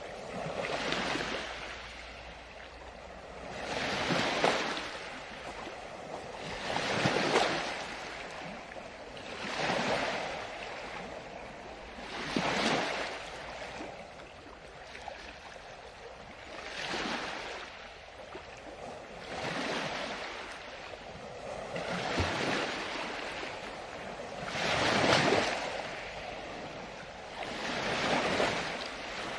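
Ocean waves washing ashore, the surf swelling and falling away in a steady rhythm of about one wave every three seconds.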